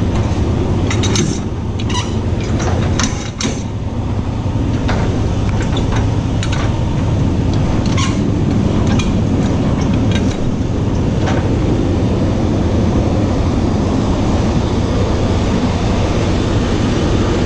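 Semi truck's diesel engine running steadily, with scattered metallic clicks and clanks during the first dozen seconds.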